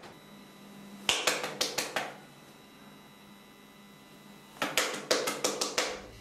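Two quick runs of sharp taps, about five a second, the first about a second in and the second near the end, over a faint steady hum.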